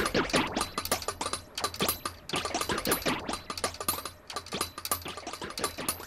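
Clock mechanism running, with rapid, uneven clicking over a steady low hum.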